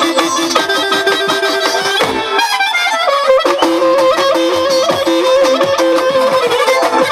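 Traditional folk music: a wind instrument plays an ornamented melody over a steady drum beat. About two seconds in the drum drops out for roughly a second while the melody runs downward, then the beat comes back.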